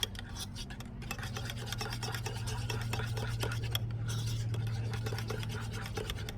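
A utensil stirring a thick mayonnaise-based sauce in a bowl, with quick repeated scraping strokes against the bowl, over a steady low hum.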